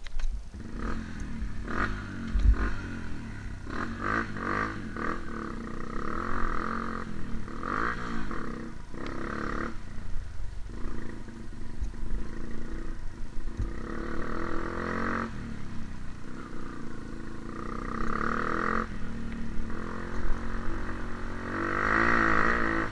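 Trail motorcycle engine running and revving up and down repeatedly, with several surges in pitch and loudness, the strongest near the end.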